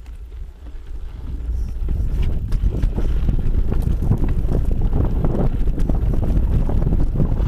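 Wind buffeting the microphone of a mountain bike riding a dirt singletrack, growing louder over the first two seconds as speed builds, then holding steady. Mixed in is a continual clatter of small knocks from the Specialized Camber bike rattling over the rough trail.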